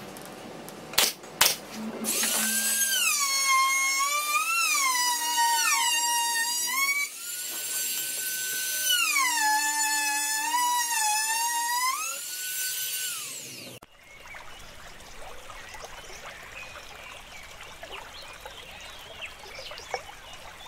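Two sharp shots from a pneumatic brad nailer about a second in, then a small electric power tool runs with a high whine that falls and rises in pitch several times as it works along a plywood edge, stopping about two thirds of the way through; after it only a faint hiss remains.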